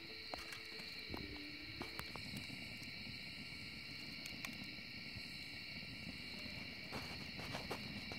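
Wood fire in a metal fire pit crackling with scattered sharp pops, and a low rumble from about a second in as the flames flare up. A steady high chorus of insects runs underneath.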